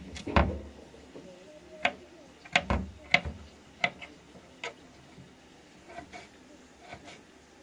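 A series of irregular sharp clicks and knocks, about eight in the first five seconds, the loudest about half a second in, with only faint taps after that.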